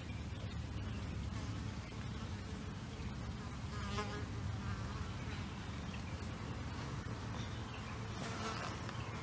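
Flying insect buzzing steadily close by.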